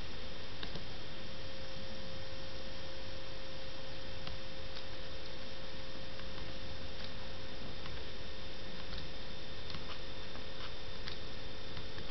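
Steady hiss with a thin electrical hum, and a few faint clicks scattered through.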